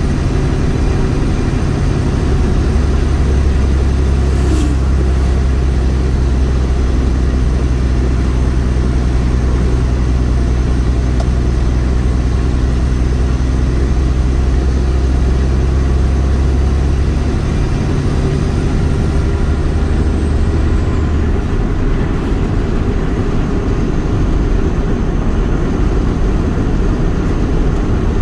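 Heavy truck's diesel engine droning steadily under way, heard from inside the cab, with road rumble. About two-thirds of the way through, the steady low engine note changes and drops out, leaving a rougher rumble.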